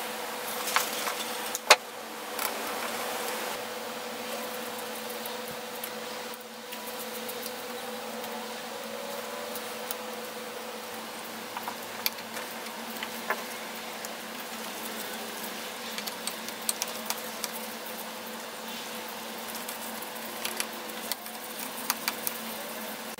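Small sharp clicks and taps of pliers and a screwdriver on the metal switch plate and wire terminals of a Porter Cable BB10 belt sander, over a steady hum. The loudest click comes about two seconds in, and more scattered taps follow in the second half.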